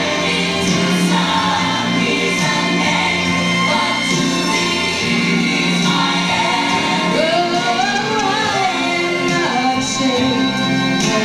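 Live gospel music: a woman sings into a microphone over sustained accompaniment, her voice sliding up and down in a long run from about seven seconds in.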